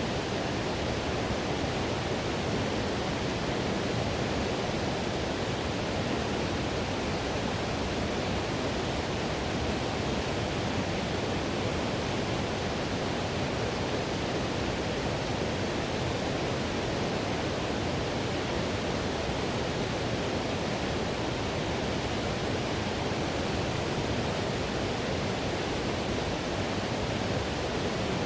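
Whitewater river rushing in a steady, unbroken roar of water noise, with no changes or separate events.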